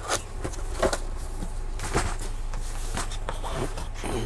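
Scattered knocks, clicks and scrapes of handling as a boxed gaming keyboard and its packaging are opened and moved about, about half a dozen separate knocks over a steady low hum.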